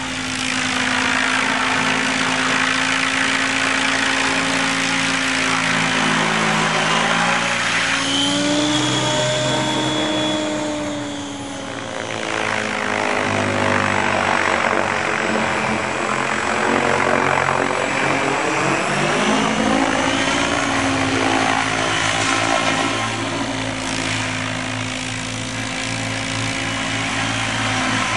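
Align T-REX 800 radio-controlled helicopter in flight: the whine and blade noise of its spinning rotors, shifting in pitch as it manoeuvres. It fades as it flies far out near the middle, then swells again as it passes close.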